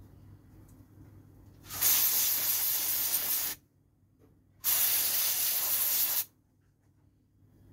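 Aerosol spray can of cleaner hissing through its red extension straw onto a car's MAP sensor to wash it: two bursts of about two seconds each, the second starting about a second after the first stops.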